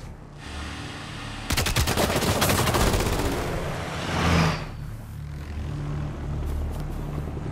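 Film soundtrack with a rapid burst of automatic gunfire about a second and a half in, lasting over a second. It is followed by a steady low engine drone from military vehicles and a helicopter.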